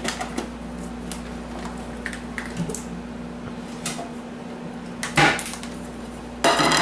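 Kitchen handling sounds as a plate is fetched from a cupboard and handled: faint clicks, then two louder clatters, one a little past the middle and one near the end, over a steady low hum.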